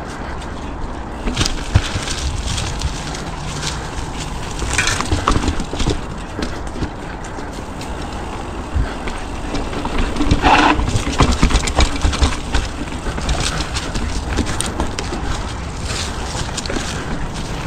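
Horse's hooves clip-clopping along during a ride, over a steady low rumble, with a short louder noise about ten seconds in.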